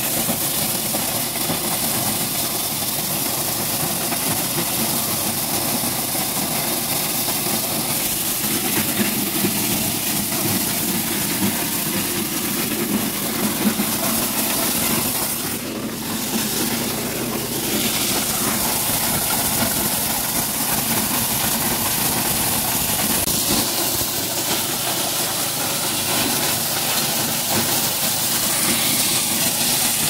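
Small engine-driven maize sheller running steadily: a continuous engine drone with a hiss, dipping briefly about halfway through.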